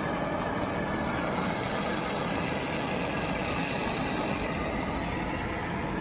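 Brazing torch flame burning with a steady rushing noise while the pipe joints of the header are brazed onto a new window-AC cooling coil.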